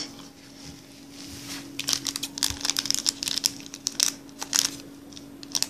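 Foil seasoning sachet crinkling as it is handled, a dense run of sharp crackles starting about two seconds in.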